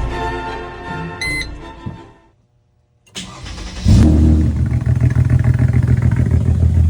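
Music fades out, and after a second of silence a Mercedes-Benz SLK's engine starts and settles into a loud, low, pulsing run.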